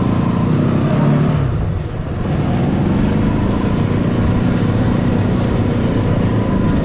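Engine of a homemade three-wheeled all-terrain motorcycle running under way with two riders aboard. It eases off briefly about two seconds in, then pulls steadily.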